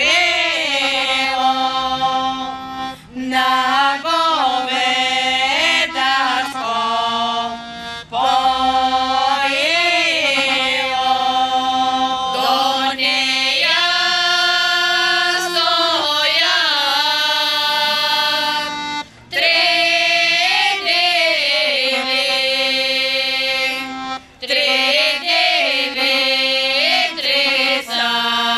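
Women's folk vocal group singing a Bulgarian folk song without instruments, in long held phrases with short breaks for breath between them.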